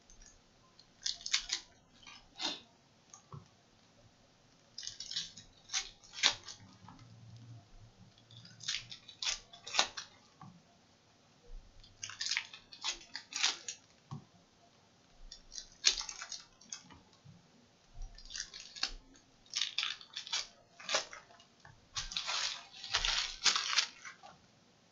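Upper Deck Goodwin Champions trading-card pack wrappers crinkling and tearing as packs are opened and the cards handled, in short bursts of crackling every few seconds.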